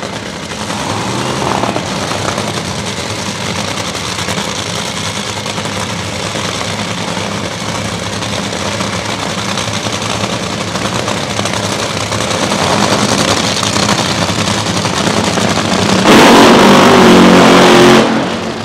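Top fuel dragster's supercharged, nitromethane-burning V8 running steadily at idle during a pit warm-up. About sixteen seconds in, a top fuel engine at full throttle in a burnout, suddenly far louder, dropping away just before the end.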